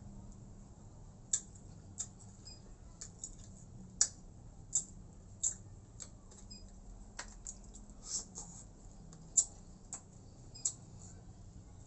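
Close-miked eating sounds of a person chewing food: short, sharp mouth smacks and chewing clicks at irregular intervals, about one or two a second.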